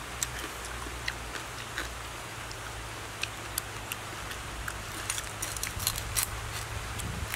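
Large knife cutting into a whole roasted pig: scattered crackles and clicks of the crisp roasted skin, coming thicker in the second half, over a steady low hum.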